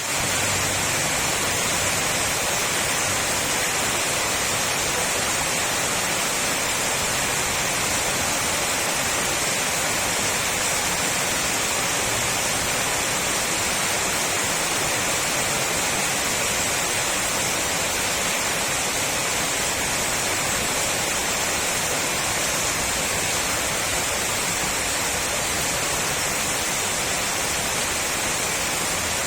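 Heavy rain falling steadily: an even, unbroken hiss that keeps the same level throughout.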